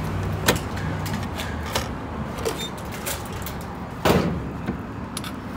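Handling of a gas pump's fuel nozzle: a few sharp clicks, then one loud clunk about four seconds in as the nozzle is lifted.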